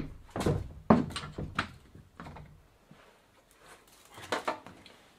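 Wooden barn door being shut and latched: a string of sharp knocks and rattles from the door and its latch, dying down over the first couple of seconds, then a few fainter clicks about four seconds in.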